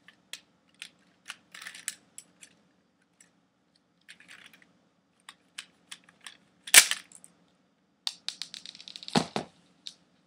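Plastic clicks and snaps of a Lego Technic rubber-band gun being handled. One sharp, loud snap comes about two-thirds of the way through, and a quick run of clicks near the end ends in a louder clack.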